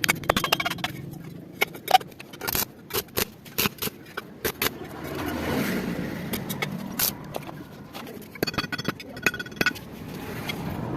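Scattered sharp clicks and knocks, like metal parts being handled in a workshop, with a short run of rapid ticking near the end and a voice briefly about halfway.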